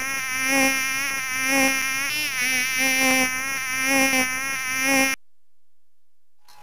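Mosquito whining in flight, a buzzing drone that wavers in pitch and swells and fades in pulses; it cuts off suddenly about five seconds in.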